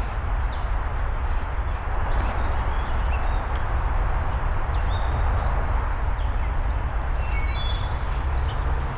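Footsteps on a woodland trail with a steady rumble of wind on the microphone. Birds chirp faintly and briefly several times in the background.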